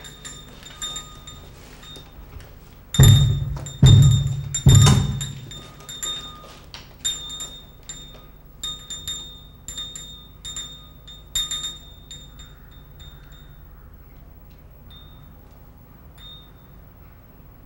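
Three heavy knocks on a wooden door, a little under a second apart, about three seconds in, amid small metal bells jingling in short shakes that thin out and stop near the end.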